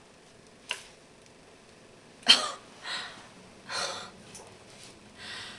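A girl sneezes once, sharply, a little over two seconds in, followed by two softer noisy breaths; a small click comes shortly before.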